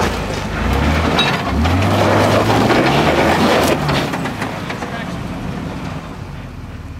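Off-road vehicle's engine revving up about a second and a half in and held for a couple of seconds while it crawls over rocks, with crunching and knocking noise from the tyres and underside, then easing back down.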